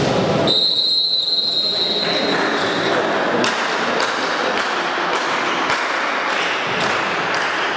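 Volleyball referee's whistle: one steady high blast lasting about two seconds, starting about half a second in, the signal for the serve. After it, a hall full of crowd noise with scattered thuds.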